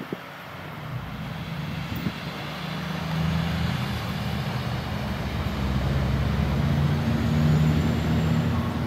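Engine noise of a passing motor vehicle, a low drone that grows louder over several seconds, peaks near the end and begins to fade.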